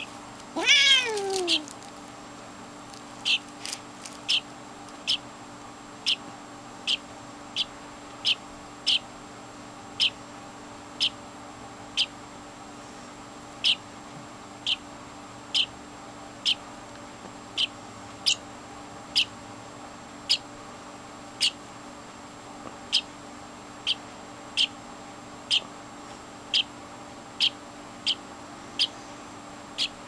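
A house cat gives one loud meow that falls in pitch, about half a second in. It is followed by a long run of short, high chirps from a European starling chick, repeated evenly a little more than once a second.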